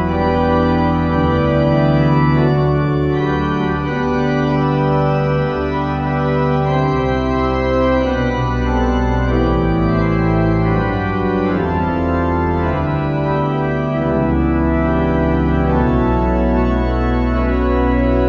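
Church organ playing the closing postlude: full held chords that change every second or two over a sustained deep pedal bass.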